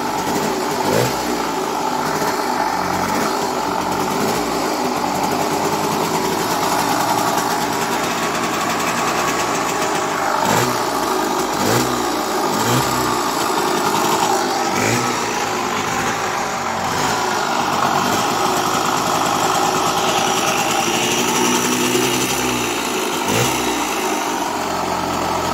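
Suzuki B100's single-cylinder two-stroke engine running at idle, with several brief blips of the throttle that raise and drop the revs.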